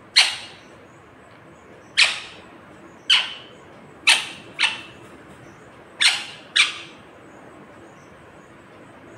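Indian ringneck parakeet giving short, sharp, harsh squawks, seven in all, about one every second or two, with two quick pairs near the middle and end.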